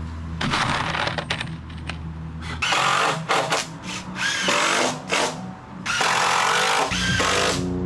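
Cordless drill driving screws into the timber of a wooden stair frame, in a series of bursts, the longest about a second and a half near the end.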